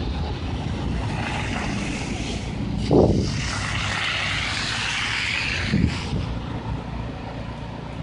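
An SUV driving past through slush on a snowy street, its tyre hiss swelling and fading over a few seconds, over a steady low rumble. A brief bump about three seconds in is the loudest moment.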